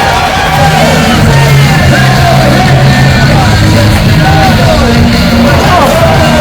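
Music with a sung or shouted vocal over a steady, held bass line.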